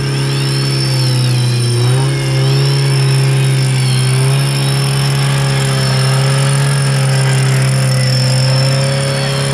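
Off-road 4x4 vehicle engine running at fairly steady revs, its pitch shifting slightly a couple of times. A faint high wavering tone sounds over it in the first few seconds.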